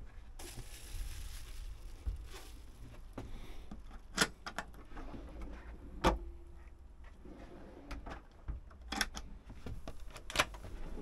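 Hands working motorhome kitchen fittings: a rustle of the plastic bubble-wrap protective sheet on the glass hob cover, then four sharp clicks and knocks as the cover is closed and the push-button drawer locks are pressed, the loudest about six seconds in.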